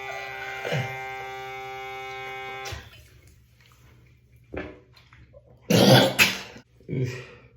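Navage nasal irrigator's motorized suction pump humming steadily, then cutting off about a third of the way in. A few seconds later a person coughs and splutters in several short bursts, the loudest about six seconds in, during a first-time nasal saline flush.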